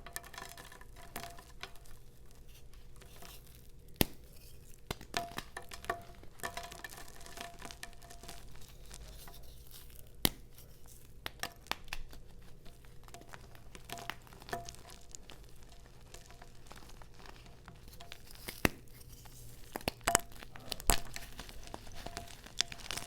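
Soft reformed gym chalk being crumbled by hand: scattered crisp crackles and crunches, with a few sharper cracks standing out, about 4 s and 10 s in and a cluster near the end.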